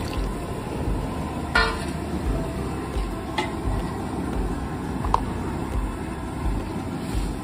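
Background music with a steady low beat and a few short higher notes.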